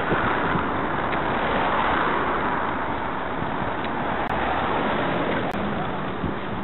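Steady road traffic noise from cars passing close alongside, mixed with wind rushing over the microphone of a camera on a moving bicycle.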